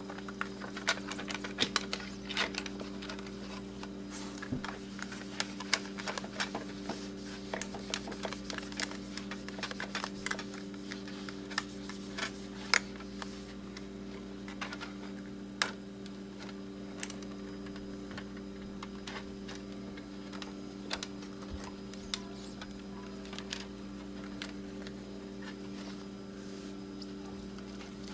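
A cloth and fingers wiping and rubbing the glass and film layers of an LCD panel to get oil off, with many small clicks and scratches, more of them in the first half. A steady low hum runs underneath.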